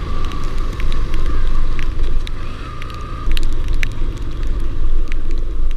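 Motorcycle riding on a wet road, with heavy wind rumble on the helmet-mounted microphone and scattered sharp ticks over it.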